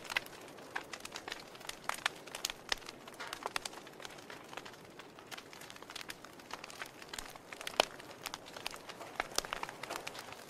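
Wood fire crackling, its logs burned down to ash and glowing embers: irregular sharp pops and snaps over a soft hiss, with one louder pop about eight seconds in.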